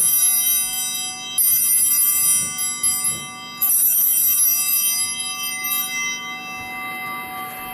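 Altar bells rung at the consecration of the host. They ring on from a first shake and are then shaken twice more, about two seconds apart, each a bright jangle of several high tones. The last ring fades out slowly.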